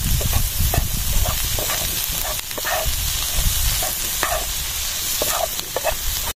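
Stir-fry of cauliflower, egg and petai beans sizzling in a frying pan, stirred with a wooden spatula that scrapes and knocks against the pan many times.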